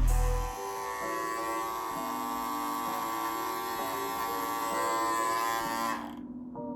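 Andis Master hair clipper running with a steady electric buzz, switched off about six seconds in.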